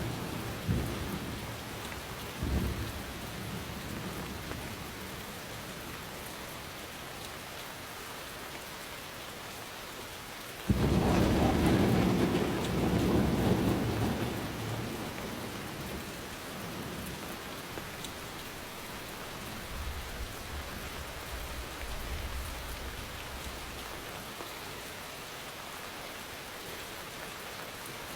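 Steady rain falling through a thunderstorm. A rumble of thunder fades out early on, a sudden loud thunderclap breaks about a third of the way in and rolls for a few seconds before dying away, and a faint low rumble follows later.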